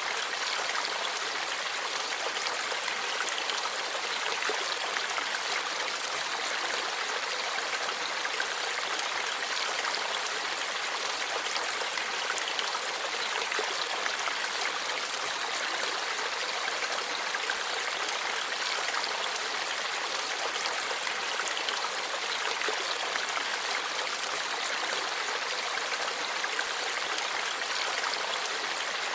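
Forest stream babbling, a steady rush of flowing water that does not let up.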